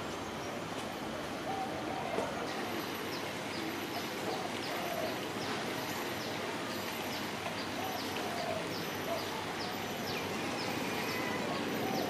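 Otters chirping: a string of short, high, falling chirps repeated over and over, over a steady background hiss.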